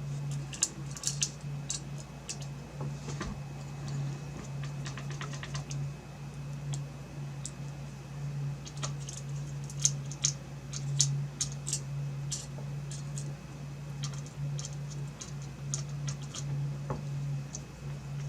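Irregular light clicks and taps of graphics card parts being handled during reassembly, over a steady low hum.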